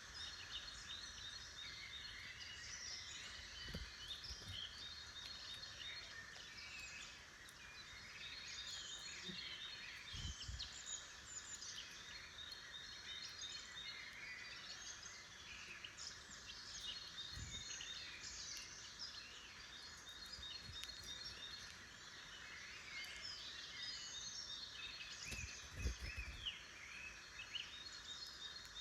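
Faint, dense chorus of many small woodland songbirds singing and calling at once, with overlapping chirps and trills throughout. A few soft low thumps stand out, about 4, 10, 17 and 26 seconds in.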